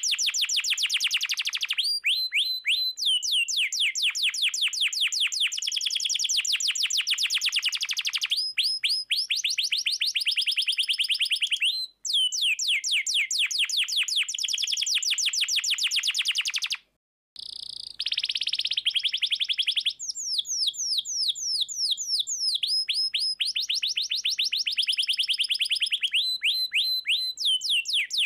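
Domestic canary singing vigorously: long rolling trills of fast, evenly repeated high notes, changing from one rapid phrase to the next. The song breaks off briefly twice, about a third and two-thirds of the way in.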